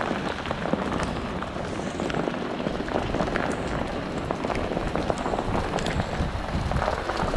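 Small hail and rain pelting a patio and outdoor furniture: a dense, steady patter broken by many sharp ticks of hailstones striking.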